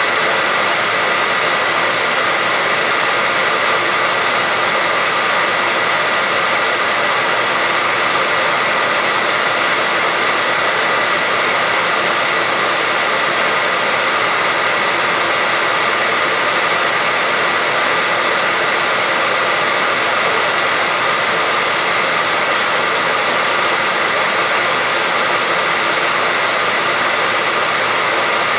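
Hair dryer running steadily: an even rushing of air with a steady whine from the motor.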